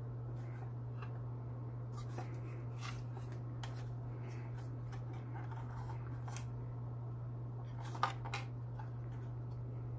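Handling noises from an XFX Radeon HD 6970 graphics card being turned over in the hands: light taps, clicks and rubbing of its plastic shroud and metal bracket, with two sharper clicks about eight seconds in, over a steady low hum.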